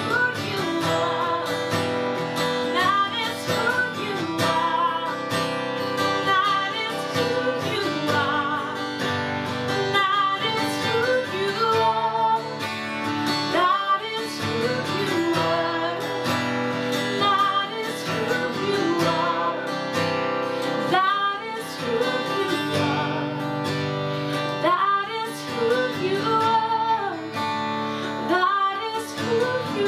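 Worship song with strummed acoustic guitar and a singing voice.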